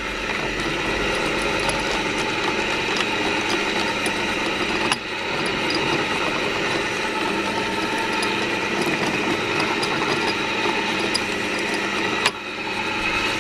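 Old electric pillar drill's motor running steadily, with a click and a brief drop in level about five seconds in and again near the end.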